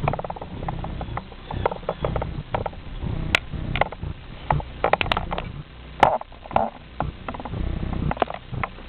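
G scale model train running on an outdoor track: a low rumble with irregular clicks and clacks from wheels and rail joints.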